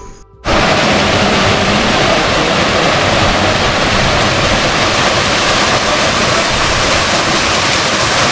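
Small waterfall pouring into a rock pool: a steady rush of falling water that starts about half a second in.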